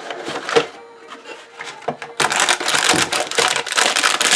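Model kit packaging being handled: a few light taps and clicks, then from about two seconds in a dense crinkling, crackling rustle as the packaging is worked open.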